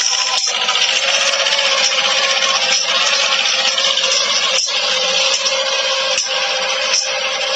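Mahindra Jivo 245 mini tractor's two-cylinder diesel engine running steadily under load while pulling a tine tiller, mixed with the tines scraping through dry soil and stubble. The sound drops out briefly a few times.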